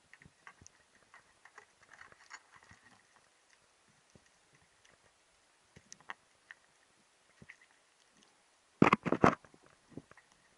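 Underwater sound picked up by a diver's camera: scattered faint clicks and crackles, with a short burst of loud knocks about nine seconds in.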